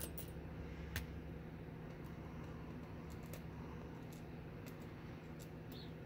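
A few faint, scattered light clicks and ticks of small lock parts and tools being handled while a pin-tumbler lock cylinder is taken apart, the sharpest about a second in, over a steady low hum.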